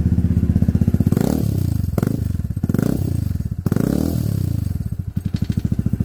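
Vespa GTS 300's single-cylinder four-stroke engine through a Remus aftermarket exhaust, idling with a steady beat. The throttle is blipped three times, the revs rising and falling each time, and then it settles back to idle.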